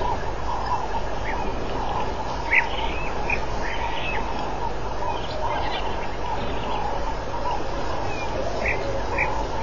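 African wild dogs twittering: scattered short high chirps over a dense, continuous chattering.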